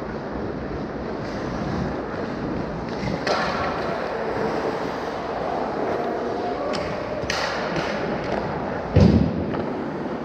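Rink sounds from a hockey game in an echoing hall: a steady wash of skating and play with a few sharp clicks, and a heavy thud about nine seconds in.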